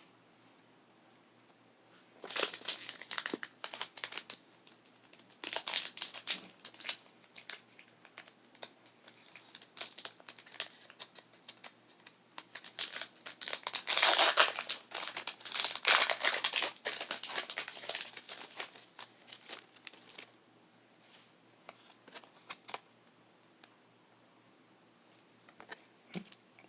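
Pokémon card booster pack's foil wrapper being handled, crinkling and tearing open in repeated bursts, loudest about halfway through, then dying away to a few faint taps near the end.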